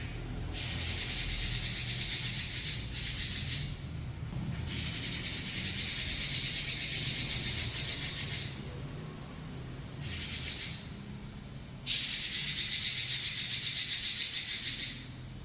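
Pekin robin (red-billed leiothrix) singing long rolling trills, high and rapidly pulsed, each held for up to about four seconds with short breaks between.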